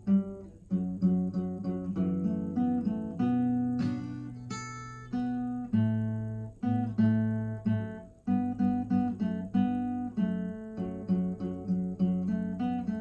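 Acoustic guitar played solo: a song picked and strummed in chords, each note ringing and fading before the next.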